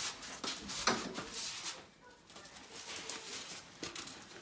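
Akita dogs whimpering softly in excited greeting, with a few short snuffling breaths in the first second or so.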